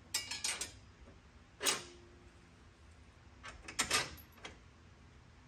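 Metal reinforcement plate and bolts clinking and knocking against a UTV's steel frame as the plate is fitted by hand: a few quick clicks at the start, a single knock with a short ring a little later, and another cluster of clicks about four seconds in.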